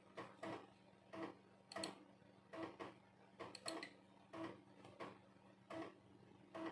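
A 3.5-inch floppy disk drive writing a Windows 98 startup disk, its head stepping from track to track in pairs of clicks a little under once a second, over a steady low hum.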